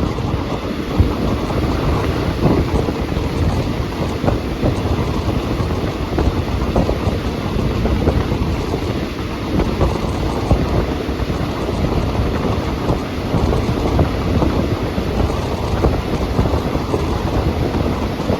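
Passenger train running along the track, heard from on board: a steady, loud rumble and rush of the wheels and moving air, with a few faint knocks.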